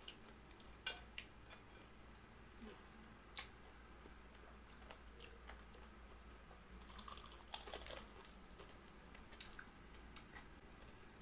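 Chewing and crunching of crispy fried chicken close to a clip-on microphone: scattered sharp crackles and clicks of the coating, with a denser stretch of crunching about seven to eight seconds in.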